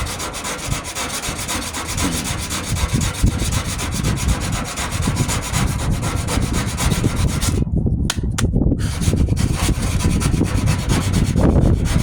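Rapid back-and-forth hand rubbing on Bondo body filler over a steel wheel arch, the filler already setting hard. The strokes stop briefly about eight seconds in, then carry on.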